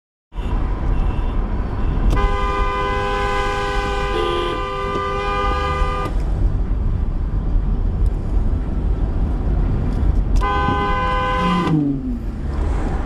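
A car horn held in one long blast of about four seconds, then a second, shorter blast about ten seconds in that drops in pitch as it ends, over a steady low traffic rumble.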